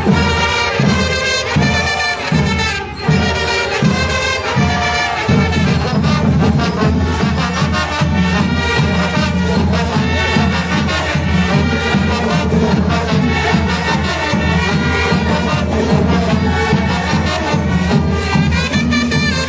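A live brass band playing lively music over a steady beat.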